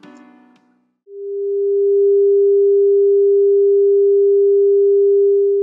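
A single steady electronic pure tone, swelling in about a second in and then held loud without change. It is an attention beep sounded over an 'Important notice' warning card.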